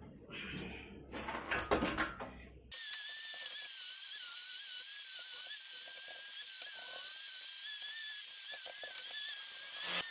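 A few clicks and clatter of handling, then a small high-speed tool starts suddenly about three seconds in. It whines steadily at one slightly wavering high pitch with a hiss, and cuts off abruptly near the end.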